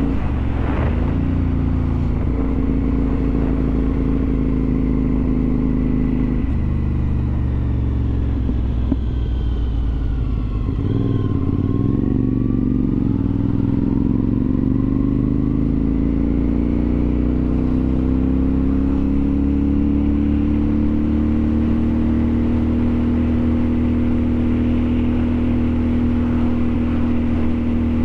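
Motor vehicle engine running on the move, its tone changing about six seconds in, dropping in pitch around ten seconds in as it slows, then rising steadily as it picks up speed again and holding.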